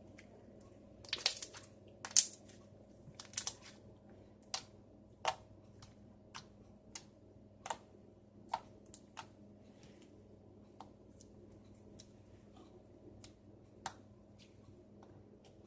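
Soft fluffy slime being squeezed and poked by hand, making irregular sharp clicks and pops. A cluster of louder pops comes in the first few seconds, then single ones about every second.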